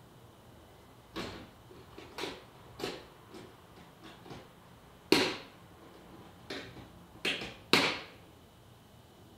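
Metal draw latches on rooftop hard storage cases being flipped open by hand: a string of sharp clicks and snaps, uneven in spacing, the loudest about five seconds in and again near the end.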